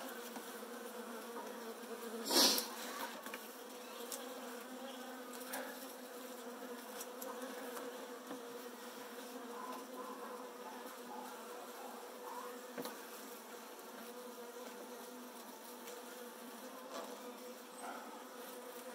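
A package of Saskatraz honeybees buzzing in a steady, even hum, with a single brief knock about two and a half seconds in.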